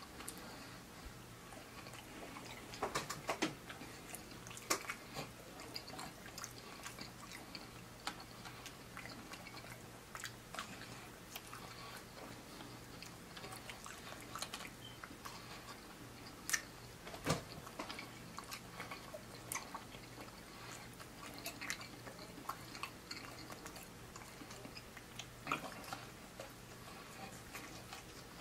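Close-up chewing and biting of fried seafood: soft mouth sounds with scattered crisp crunches, the clearest about three seconds in and again around seventeen seconds. A faint steady low hum runs underneath.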